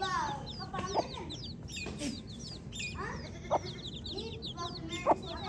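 A group of baby chicks peeping continuously, with many short, high, falling chirps overlapping one another. A few brief, louder, lower sounds stand out about a second in, midway and near the end.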